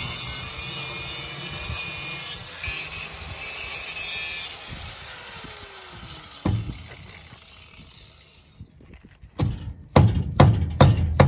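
Angle grinder cutting into a rusty steel frame, a steady high grinding hiss that fades out about eight seconds in. Near the end comes a run of loud metal bangs, two or three a second.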